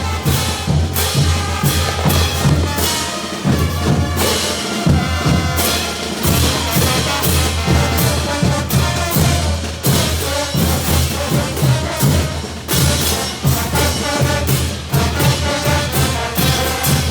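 Bolivian brass band playing a caporales, with bass drum and snare beating a steady rhythm under the brass.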